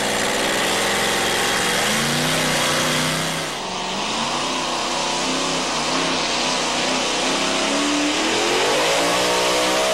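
Supercharged racing engine of a two-wheel-drive pulling truck running at full throttle as it drags the weight-transfer sled down the track. The engine note climbs about two seconds in, dips briefly, then rises again near the end.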